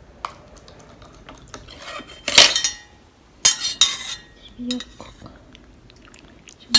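Metal spoon and stainless-steel soup pot and lid clinking and clattering as the meal is uncovered and the spoon is worked through the soup: a few sharp clinks, two longer scraping clatters about two and a half and three and a half seconds in, and a loud clink near the end.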